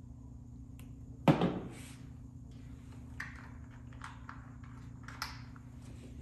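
Tools and wire being handled on a workbench during harness building: one loud knock about a second in, then several lighter clicks and rustles, over a steady low hum.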